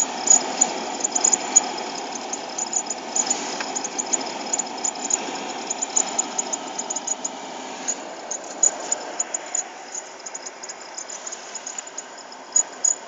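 VW Polo Sedan heater blower fan running at low speed, its steady rush of air broken by rapid, irregular high-pitched squeaks, several a second, that thin out near the end. The squeak comes from the heater fan when the car and cabin are cold.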